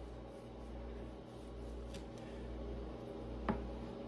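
Kitchen knife slicing through tomatoes on a cutting board: faint cuts, with one sharp knock of the blade on the board about three and a half seconds in, over a low steady hum.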